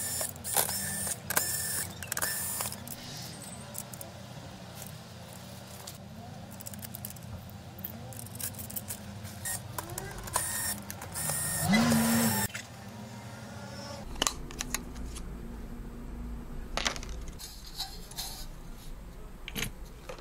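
Small metal parts clicking and clinking as a screwdriver fastens a Noctua NH-D15 cooler's mounting spacers and bars onto an AM4 motherboard, with the loudest clatter about ten to twelve seconds in.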